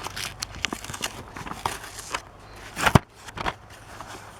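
Toy packaging being handled and opened: scattered small crackles and clicks, with one sharp snap about three seconds in.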